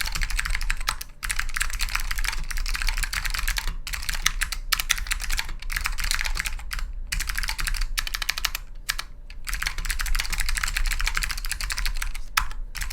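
Fast typing on an Orion V3 custom keyboard with clicky white Alps switches and thin old Dell keycaps: a dense stream of crisp, sharp key clicks, broken by a few short pauses.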